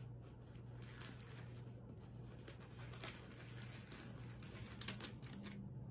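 Thin Bible pages being leafed through by hand: soft, scattered paper rustles over a steady low hum.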